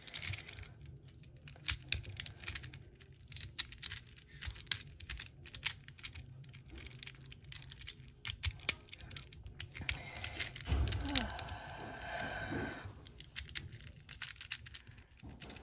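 Plastic 3x3 Rubik's cube being turned quickly by hand: a steady run of sharp clicks and rattles as the layers snap round, with a denser, rustling stretch a little past the middle.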